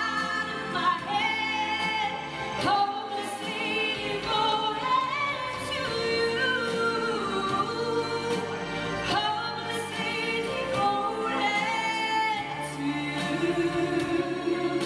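A choir singing a song, several voices holding and moving between sung notes without a break.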